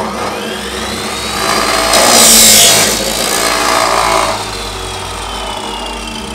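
Abrasive chop saw cutting through a tube clamped in its vise. The motor's whine rises as it comes up to speed, the disc grinds through the tube for about three seconds (loudest about two seconds in), then the motor winds down in a slowly falling whine.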